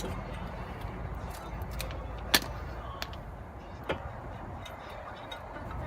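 A few sharp clicks and knocks of hand tools and brake parts being handled, the loudest about two and a half seconds in, over a steady low hum.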